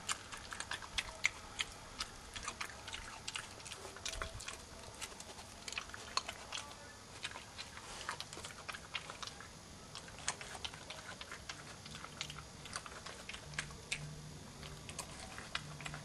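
European badger crunching peanuts: a quick, irregular run of sharp crunches and clicks, several a second.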